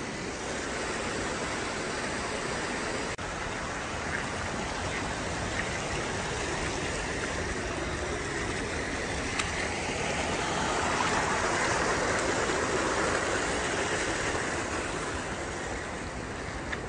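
Mountain stream rushing over rocks, a steady noise of running water that grows a little louder past the middle.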